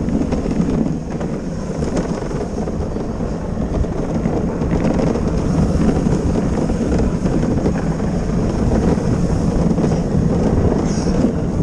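Gravity luge cart rolling fast downhill on a concrete track: a steady rumble of the wheels on the track surface, with wind buffeting the microphone.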